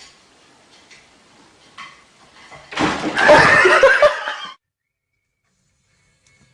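A loud burst of vocal sound with a wavering pitch, about a second and a half long, starting about three seconds in after a few faint knocks, then cut off abruptly into silence.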